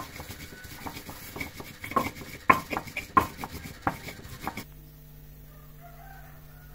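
Cutlery clinking and scraping against a plate while eating, a run of sharp irregular clinks that stops abruptly about four and a half seconds in, giving way to a steady low hum.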